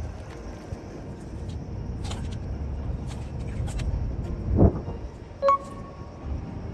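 Steady low outdoor rumble with faint clicks as black sea bream are handled on a stringer at the water's edge. About four and a half seconds in there is a single short loud splash-like thump, and just after it a brief high beep.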